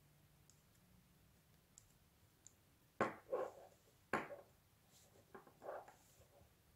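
Paracord and a metal snap hook being handled while a knot is tied. There are two sharp clicks about three and four seconds in, each with a short rustle after it, then softer rubbing of the cord near the end.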